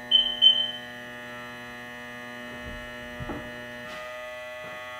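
Newly installed electric bilge pump in a 2018 Sea-Doo RXT-X 300 running with a steady hum, powered on with the ignition switched on. Two short high beeps near the start.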